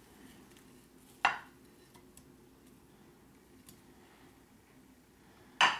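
A spoon clinking and knocking against a plate and a glass baking dish as frozen creamed spinach is spooned out: one sharp clink about a second in, a few faint taps, and another knock near the end.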